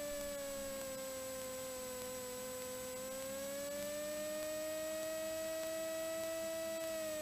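Cessna 182T Skylane's six-cylinder Lycoming engine and propeller at takeoff power during the takeoff roll, heard in the cockpit as a steady humming drone. Its pitch sags slightly about a second or two in, climbs back by about four seconds, and starts to ease down near the end.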